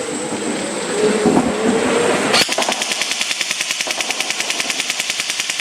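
Electric BB gun firing fully automatic in one long rapid burst, roughly a dozen shots a second, starting about two and a half seconds in after a stretch of steady noise.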